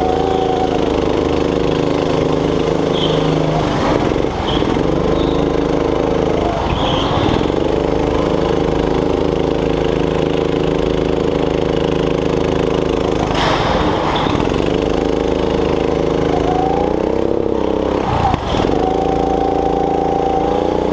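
Onboard sound of a go-kart's small engine running hard around a track, its pitch dropping sharply as it comes off the throttle into corners and climbing again on the straights, about five times over.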